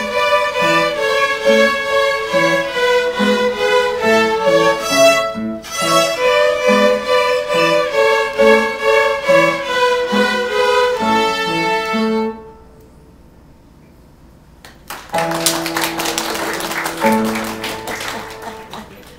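A group of young Suzuki violin students playing a tune together on violins, in short, even bowed notes with a brief break about five seconds in. The playing stops about twelve seconds in, and after a short lull applause breaks out near the end.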